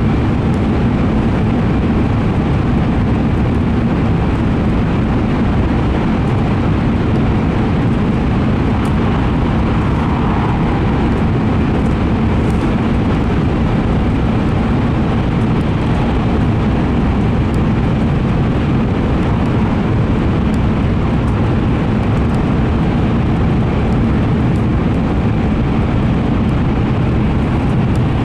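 Cabin noise inside a moving N700A Shinkansen train: a steady, even running noise of wheels on rail and air, heaviest in the low end, with no change in speed.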